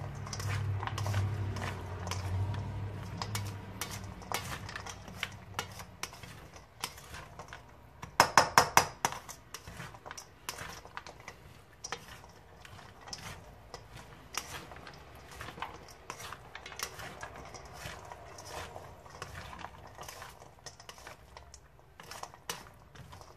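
Chopped chicken being mixed in a stainless steel bowl: scraping and light clinks against the metal, with a short run of louder metallic knocks about eight seconds in.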